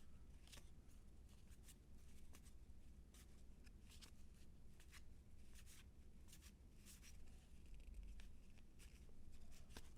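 Faint, irregular soft clicks and rustles of trading cards being slid off a stack and flipped by hand, one after another.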